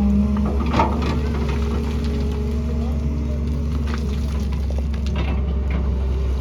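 Excavator's diesel engine running steadily with a low rumble, a pitched hum fading out about half a second in, and a few sharp knocks of the bucket working rock.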